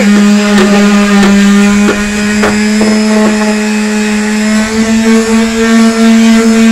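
Black & Decker electric sheet sander running against a chipped painted car body panel: a steady motor hum. There are a few short knocks in the first three seconds, and the hum rises slightly in pitch about five seconds in.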